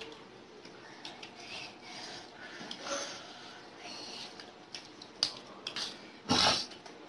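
Fingers mixing rice and chicken curry on stainless steel plates, with soft scattered clicks and scrapes of hand and food against the metal. A brief louder noise comes about six seconds in.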